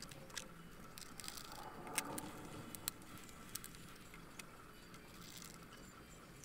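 Faint scattered clicks and taps of hands handling a plastic laptop bottom case on a wooden desk, with one sharper click about two seconds in.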